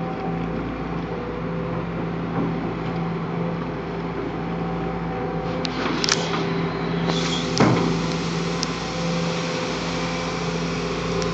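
Amphibious excavator's diesel engine running steadily close by, a constant droning hum, with a few short sharp knocks between about six and eight seconds in.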